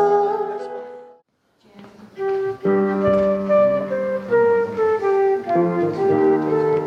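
Instrumental music: one piece fades out about a second in, and after a brief silence another instrumental piece begins with a melody of held notes over an accompaniment.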